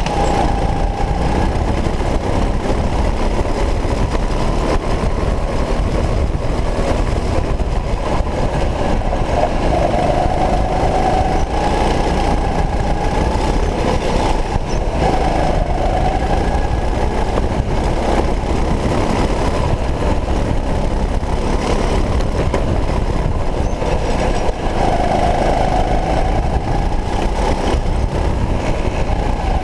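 Racing go-kart at full speed on a kart-mounted camera: a steady motor drone whose pitch rises and falls every few seconds as the kart slows for corners and accelerates out, over a constant heavy rumble.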